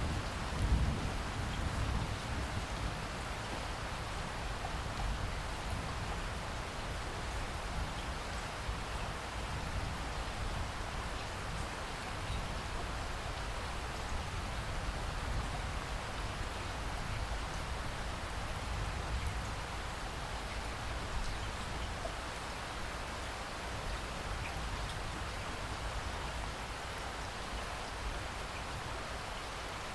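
Steady rain falling, with a low rumble of distant thunder dying away in the first two seconds.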